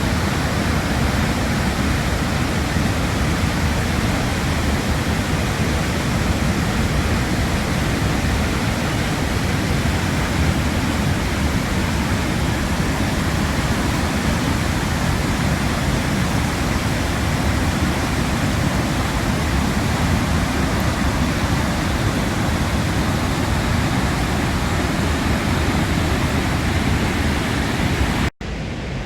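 Dettifoss waterfall: a steady, heavy rush of falling water, deepest in the low range. Near the end it cuts out for an instant and gives way to a quieter, duller rush.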